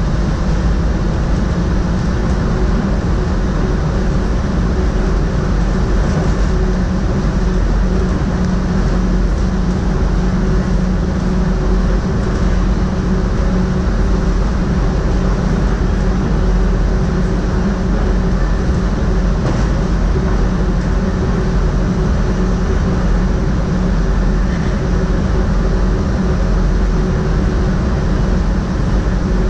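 Running noise of an NS SGM Sprinter electric multiple unit, heard in the driver's cab: a steady rumble of wheels on the track with a constant hum.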